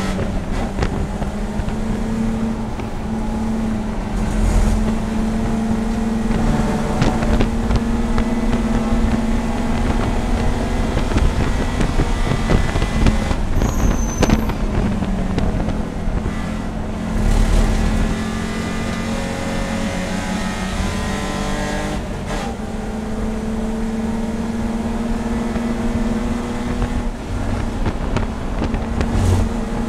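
BMW E30 race car's engine heard from inside the cockpit, running hard at high revs, its pitch climbing and dropping repeatedly as the driver accelerates, lifts and shifts. A steady drone of road and wind noise runs underneath.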